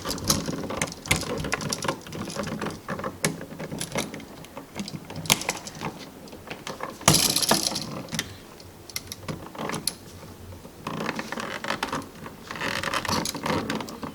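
Irregular clicks, taps and scraping of a wall switch and its stiff electrical wires being handled and pushed back into a switch box, with a longer scrape about halfway through and more scraping near the end.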